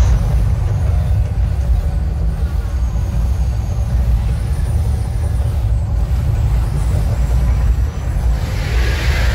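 Mirage volcano attraction erupting: a loud, deep rumble comes in suddenly as the fire and water jets shoot up and holds steady, with a hissing rush rising near the end.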